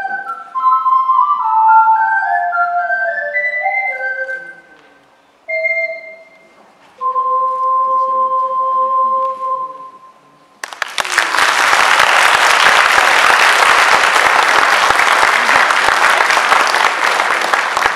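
Ocarina duet playing a fast two-part running passage, then a short figure, then a long held final chord that ends about ten seconds in. Audience applause breaks out right after and runs loud and steady.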